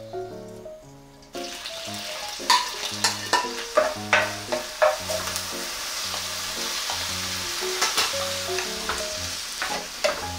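Cubed radish kimchi and sliced green onions frying in hot oil in an electric skillet, the sizzle starting suddenly about a second and a half in and continuing steadily, with a run of sharp taps from stirring in the first half.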